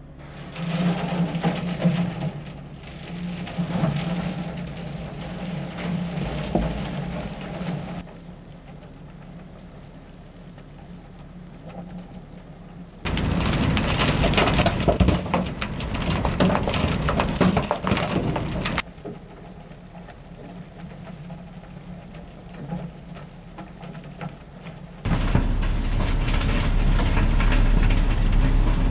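Diesel engines of a road-milling machine and a dump truck, with broken asphalt millings rattling into the steel truck bed. Loud stretches start and stop abruptly, separated by quieter spells.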